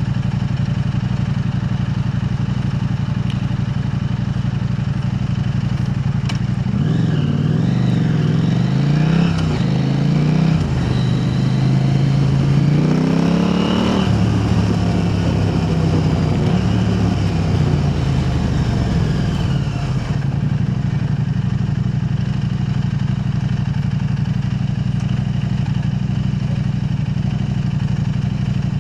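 KTM 890 Adventure R's parallel-twin engine running through an aftermarket Arrow Race-Tech exhaust, holding a steady drone. From about a quarter of the way in, the revs swing up and down, climbing highest midway, before settling back to a steady note about two-thirds through.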